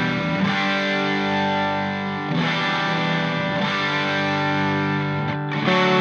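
Background rock music: distorted electric guitar playing sustained chords that change every second or two.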